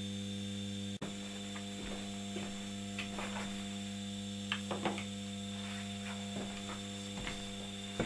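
Hotpoint washing-machine motor, a three-phase induction motor run from single phase through a 16 µF capacitor, running steadily at 110 V with a constant mains hum, at about 2800 rpm on 50 cycles. A few faint light clicks come from the clamp meter being handled.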